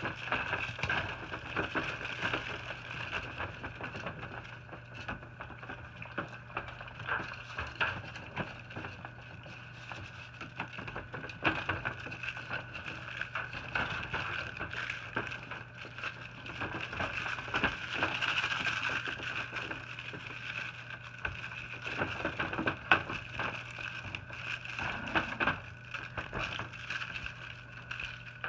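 Puppies scuffling and playing in a wire dog crate: irregular small knocks, scrapes and rustles of paws and bodies on the crate floor, bed and blankets, over a steady hum.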